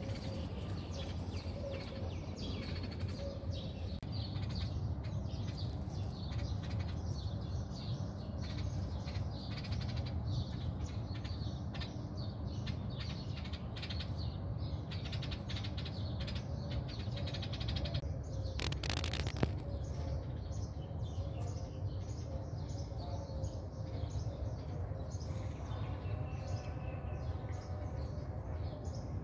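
Outdoor ambience: a steady low rumble with small birds chirping on and off. A brief louder noise comes about two-thirds of the way through.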